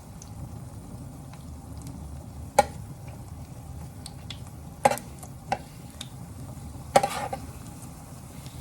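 A cooking utensil knocking and scraping against a pot four times, with a short rattle near the end, over steady faint sizzling of food cooking on the stove.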